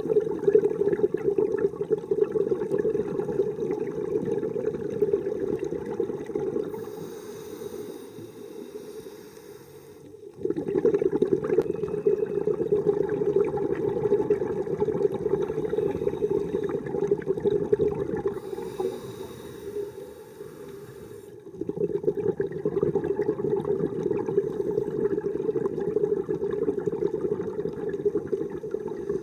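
Scuba diver breathing through a regulator underwater: long rushes of exhaled bubbles, twice broken by a quieter inhale with a faint high hiss from the regulator.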